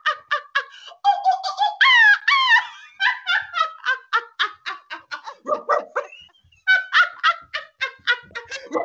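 People laughing in quick, choppy bursts while imitating animal noises, with two rising, drawn-out calls about two seconds in.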